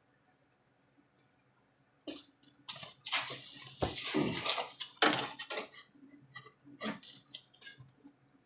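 Sheet metal and metal hand tools clattering and scraping during body-panel work. It starts about two seconds in, lasts about four seconds, and tails off into a few lighter clicks.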